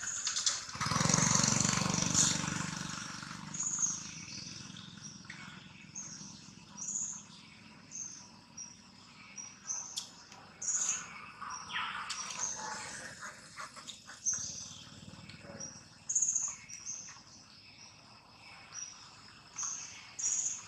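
A bird chirping over and over, a short high note about once a second, against outdoor forest ambience. About a second in, a louder, fuller sound lasts for about two seconds.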